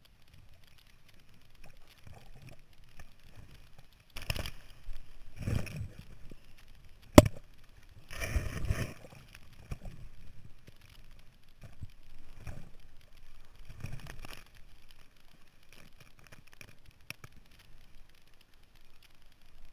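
Choppy seawater splashing and sloshing around a fallen windsurf sail close to the camera, in irregular bursts over wind noise on the microphone, with one sharp knock about seven seconds in.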